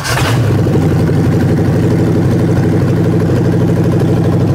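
Ford 302 small-block V8 on an engine stand firing up: a short burst as it catches, then running steadily at idle.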